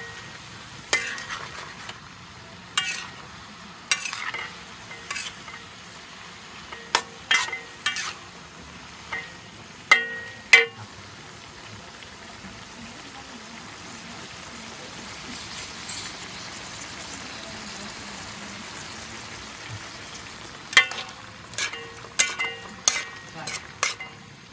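Greens and pork stir-frying in a wok: a steady sizzle, with a metal spatula scraping and clanking against the wok in irregular bursts. Through the middle there is a long stretch of sizzling alone, then a quick flurry of clanks near the end.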